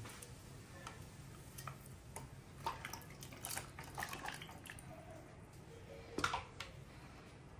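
Irregular light clicks and knocks of kitchen utensils and vegetable preparation, loudest about six seconds in, over a faint steady low hum.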